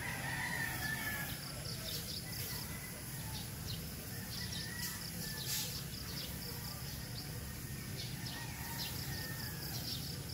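Rural morning ambience in tropical countryside: birds calling and chirping at intervals, with insects trilling in short pulsed trains, over a steady low rumble.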